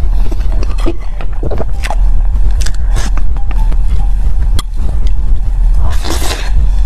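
Close-miked eating of a soft cream-filled crepe roll with tapioca pearls: wet chewing and mouth sounds, with sharp clicks of a metal fork on a ceramic plate, a louder bite about six seconds in, and a steady low rumble underneath.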